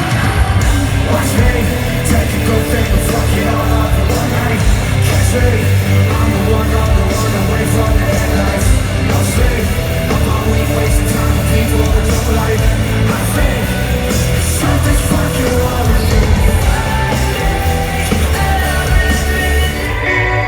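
Loud live rock concert music over a PA, heavy bass and a voice over the band.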